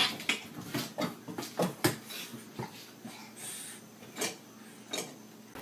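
Plastic cat-flap clacking against its frame again and again as it swings behind a cat squeezing through. The clacks come quickly for about two seconds, then thin out to a few single knocks.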